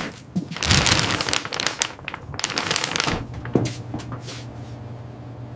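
Plastic food packaging crinkling and rustling in several bursts through the first three seconds, then a steady low hum with a few light clicks.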